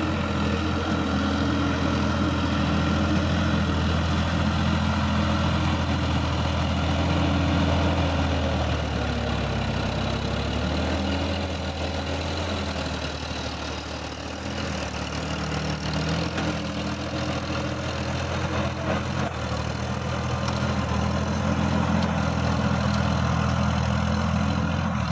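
Sonalika DI-50 RX tractor's diesel engine running steadily under load, pulling a rotary tiller through dry soil. The engine sound eases off for a few seconds about halfway through, then picks up again.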